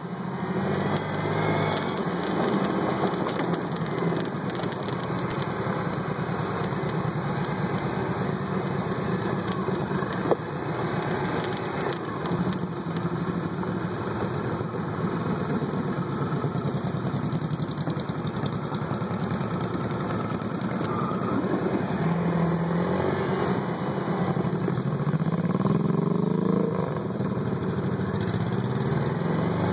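Motorcycle engine running under way, its pitch rising and falling with the throttle and climbing a few seconds before the end as it accelerates. A single sharp knock about ten seconds in.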